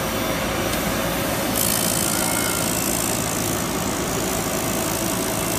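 CGR-155 compact drill rig running steadily under engine power, with a high hiss that grows louder about a second and a half in.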